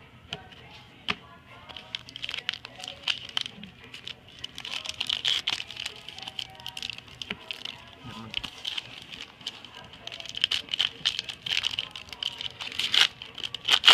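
Foil trading-card pack wrapper crinkling and tearing open, with irregular sharp clicks and rustles as the cards are handled.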